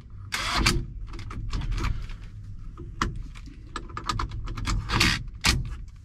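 A cordless drill driving the centre bolt of a steering wheel puller in several short bursts, with sharp metal clicks and rattles from the tool and the puller.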